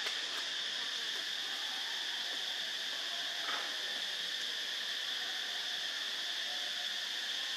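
Insects droning steadily at a high pitch, with one faint short sound about three and a half seconds in.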